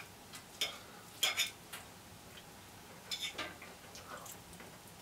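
A fork clinking and scraping on a ceramic plate while eating, a few short, irregular taps with quiet in between.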